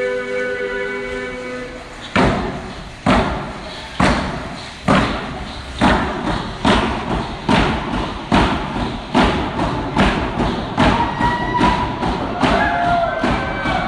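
A group's held sung note fades out, then a drum begins a steady beat about once a second. The beat quickens to about two a second near the end, and voices take up a song over it.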